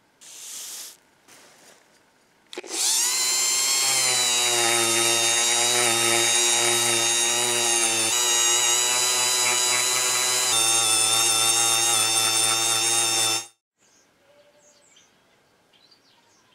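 Handheld rotary tool with a small abrasive buffing wheel spinning up and running with a steady high whine, buffing rust off a steel latch plate; its pitch shifts a little a few times and it cuts off suddenly near the end. A short burst of noise comes first.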